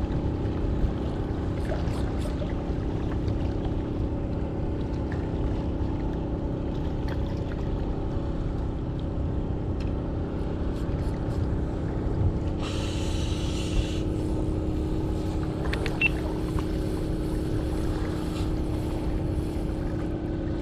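A boat's engine running steadily, a low rumble with a constant hum, with a brief hiss about thirteen seconds in.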